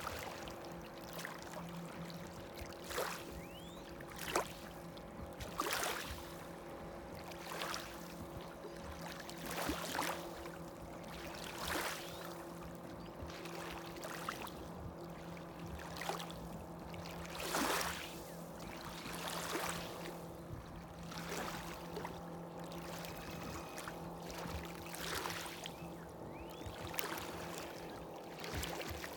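Small waves lapping on the lakeshore about every second and a half, over the steady hum of a distant motorboat engine.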